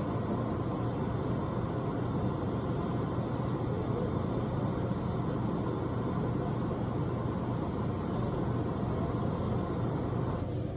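Soldering torch flame blowing steadily on a vertical copper pipe fitting, a continuous rushing hiss that drops away near the end. The flame is being held on the joint too long, the overheating that makes solder run and drip down a vertical joint.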